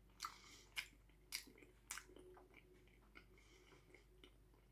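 A person chewing a mouthful of chicken burrito with the mouth closed: faint, moist crunches, four in the first two seconds, then softer.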